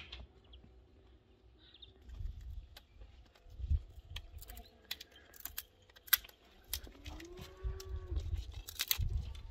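A puppy gnawing a stick on stone paving, with scattered sharp clicks and scrapes. About seven seconds in, one long animal call rises and falls in pitch.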